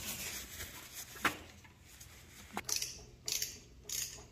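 Socket ratchet snugging down the cylinder head nuts on a Honda CT125 engine: a couple of sharp metal clicks, then from about halfway a short burst of ratchet clicking on each back-stroke, roughly every half second.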